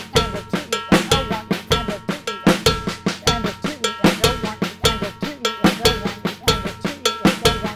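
Drum kit playing a repeating Latin-funk groove. The right hand plays a cowbell, which rings through the pattern. The left hand plays snare ghost notes and accents in an inverted paradiddle (left, left, right, left), and a bass drum sounds underneath.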